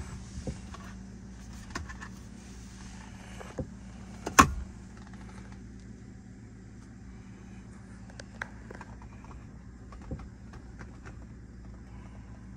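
Nissan 300ZX's 3.0-litre V6 idling with a steady low hum, heard from inside the cabin. Scattered clicks from the interior trim being handled, the loudest a sharp clack a little over four seconds in.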